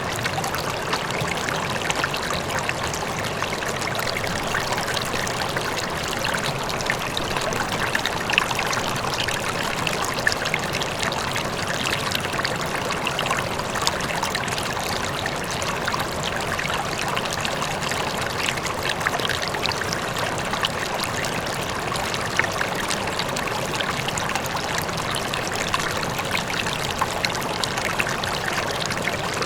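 River water flowing steadily, an even rushing full of small splashes and trickles, with a faint waterfall in the distance.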